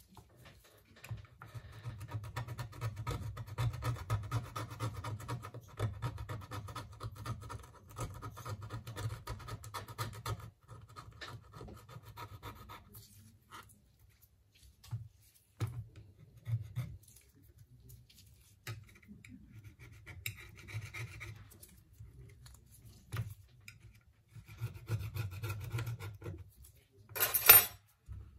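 Repeated scraping and rubbing of a hand tool against a smartphone's frame and glass during a screen replacement, steady for the first half and coming in short strokes after. A brief loud clatter near the end.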